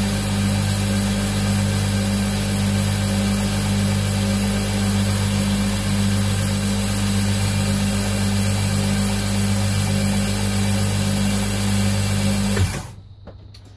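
Knife-making belt grinder running an abrasive belt without a workpiece, its direct-drive electric motor giving a steady hum under the hiss of the belt over the rollers. It is switched off about a second before the end, and the sound falls away quickly.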